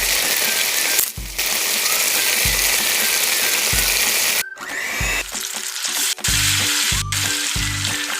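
Food sizzling and frying in a hot pan, a loud, even hiss that breaks off about four and a half seconds in, returns briefly, then gives way to background music with a steady thumping beat.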